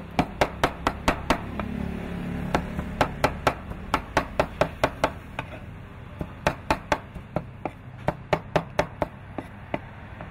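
Cleaver chopping raw meat into mince on a wooden cutting board: quick sharp knocks, about five a second, in runs broken by short pauses, over a steady low background hum.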